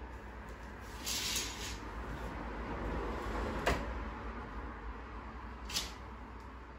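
Curtains drawn back along their rail with a short swish, followed by two sharp clicks, one about halfway through and one near the end, as a window is handled.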